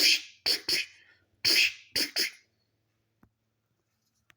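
A person making short, sharp "chh" mouth sound effects for digging tools striking and scraping stone, six in about two and a half seconds, in clusters. A few faint clicks follow.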